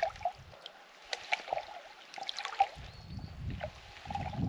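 Lake water splashing and gurgling as a collapsible plastic water bag is dipped and scooped full at the water's edge, with scattered small splashes and rustles of handling.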